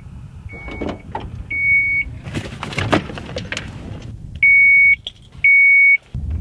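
Minivan warning beeper sounding a series of steady high-pitched beeps: two short faint ones, then two long loud ones near the end, with clicks and knocks in between. The beeps fit the chime a minivan's power liftgate gives while it opens or closes.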